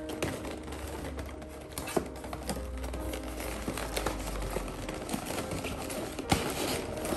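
Cardboard pasta box being handled: crinkling and rustling of the carton, with a few sharp taps and clicks as its top is worked open and folded, over soft background music.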